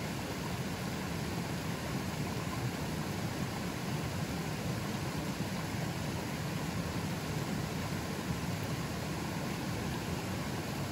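River running fairly strong: a steady rush of flowing water, fullest in the low range and unchanging throughout.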